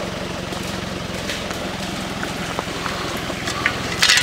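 Off-road SUV's engine running steadily at low revs as it crawls through a rutted gully, with a short sharp knock about four seconds in.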